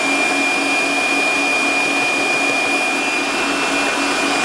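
Electric stand mixer running at speed with a steady high whine, its beaters working a thick cream of butter and vegetable shortening.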